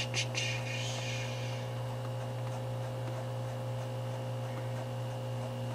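Steady electrical mains hum, with two faint clicks and a brief hiss in the first second.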